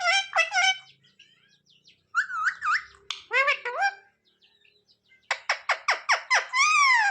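Pet ringneck parrot calling: three short bursts of squawky, pitch-bending calls, then a quick run of sharp chirps, about seven a second, ending in a longer call that rises and falls.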